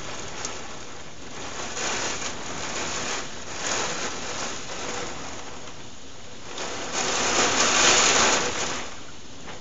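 Heavy thunderstorm rain coming down in gusts, its hiss swelling and easing several times, strongest for about two seconds near the end.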